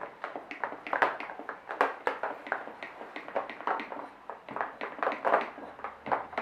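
Sticky slime being squeezed and slapped in the hands, giving an irregular run of wet smacks and pops, several a second.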